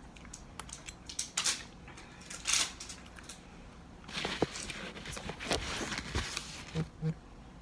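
A metal fork clicking and scraping on a plate as food is eaten, in separate sharp clinks. About four seconds in there is a longer rustle close to the microphone.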